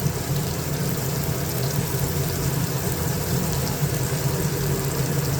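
Steady hiss with a low hum underneath, from a kadai heating on the stove just before frying.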